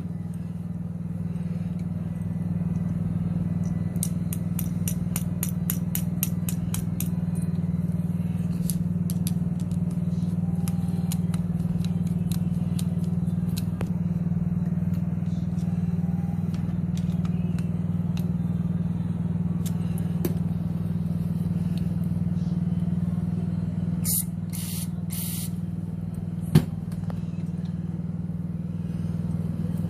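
A motor runs with a steady hum throughout. Faint ticks come through in the first half, and three short hisses of spray sound about 24 to 26 seconds in.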